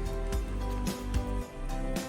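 Solo guitar music: plucked notes ringing over sustained bass tones.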